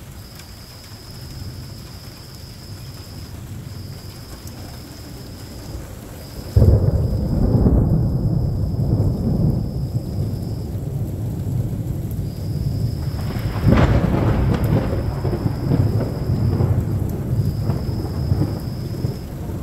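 Rain falling steadily, then a close thunderclap: a sudden loud crack about six seconds in that rolls into a long low rumble, and a second sharp crack near the end of the rumble.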